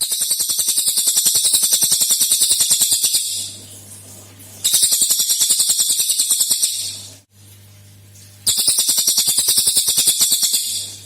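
Cililin bird singing its rapid-fire 'tembakan' song: three bursts of fast, high, repeated notes, about a dozen a second, each two to three seconds long, with softer calling in the pauses between bursts. A faint low hum sits under the quiet gaps.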